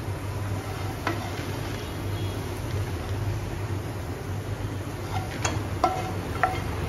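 Wooden spatula scraping roasted dry fruits out of a non-stick frying pan, tapping against the pan a few times: once about a second in, then several quick taps near the end. A steady low hum runs underneath.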